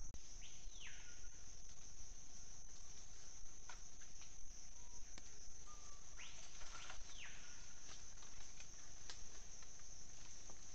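Steady high-pitched insect drone, with two falling whistled calls, one about half a second in and a longer one around six seconds in, and scattered faint ticks.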